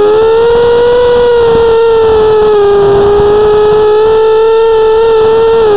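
FPV quadcopter's motors and propellers whining steadily, the pitch sagging and rising slightly with throttle changes and dipping sharply near the end.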